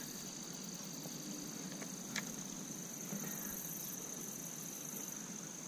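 A steady, high-pitched chorus of insects, with one faint click about two seconds in.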